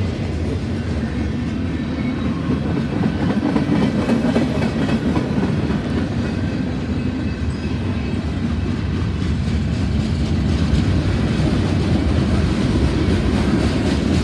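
A CSX freight train of boxcars passing close by: a steady rumble of rolling cars, with the steel wheels clacking over the rail joints.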